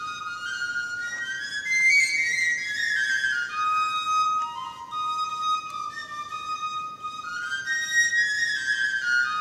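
Unaccompanied solo melody on a thin, whistle-like wind instrument: high notes that step and slide downward in short runs.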